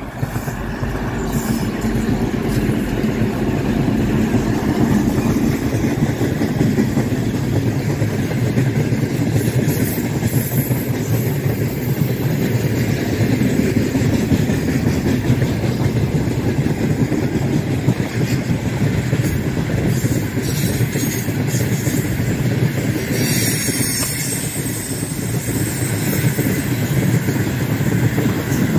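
A 3TE10UK three-section diesel locomotive passes close by under power, its engine sound building over the first few seconds. It is followed by a long string of freight wagons rolling steadily past on the track.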